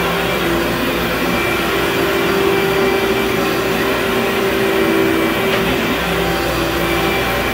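Upright carpet-cleaning machine running steadily while pushed over carpet: a continuous motor hum and suction rush whose pitch dips slightly now and then.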